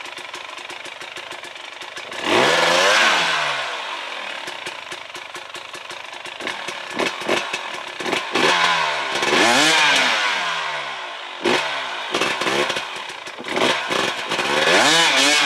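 300cc enduro motorcycle engine running low, then revved in several bursts of throttle, the pitch rising and falling with each.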